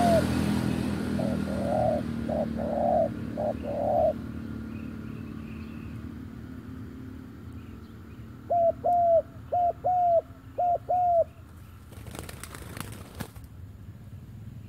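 Spotted doves cooing in two bouts of short, arched, repeated notes, the first starting about a second in and the second about eight and a half seconds in. A burst of wing flapping follows about twelve seconds in.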